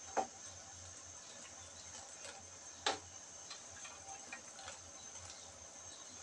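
String beans tipped off a plate into a wide pan of simmering broth: light clicks and taps, with two sharper clicks, one near the start and a louder one about three seconds in, over a steady faint hiss.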